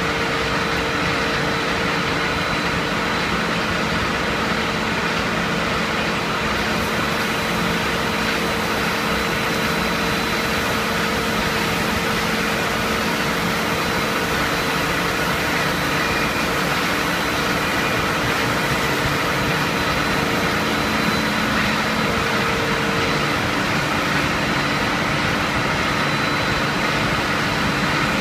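HDPE raffia tape stretching line running: a steady machine drone of motors and rollers, with a constant hum and a thin high whine.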